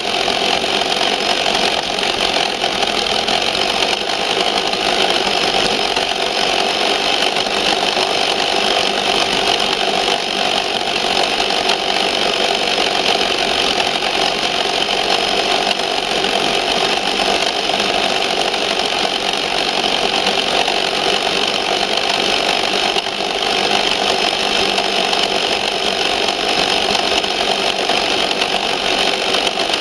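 Electric motor and gearbox of a Tamiya Ford F350 RC 4x4 truck running steadily as it drives, a constant whine picked up by a camera mounted on its hood.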